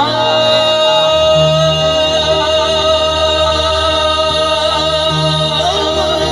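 Live devotional bhajan music played through a sound system: a single long melodic note held over a steady low drone.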